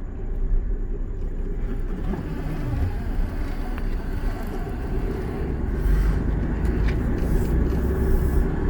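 1997 Ford F-150 pickup driving, heard from inside the cab: steady engine and road noise, growing a little fuller in the second half.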